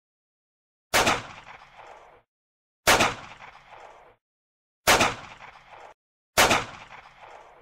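Four gunshots, each a sharp crack with a short echoing tail. They come about two seconds apart, the last one a little sooner.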